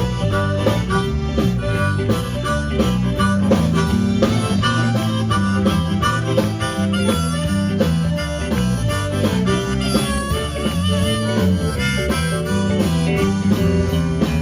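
Blues band playing an instrumental break, a harmonica carrying the lead over guitar, bass and drums with a steady beat.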